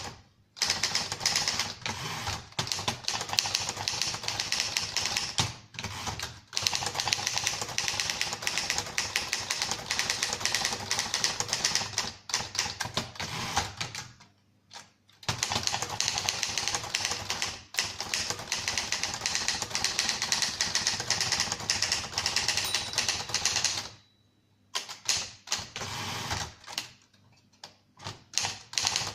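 1950s Remington Rand standard manual typewriter (a Dutch-made Torpedo model) being typed on: rapid runs of keystroke clacks. The runs break off briefly about 6, 14 and 24 seconds in, and the keystrokes come sparser near the end.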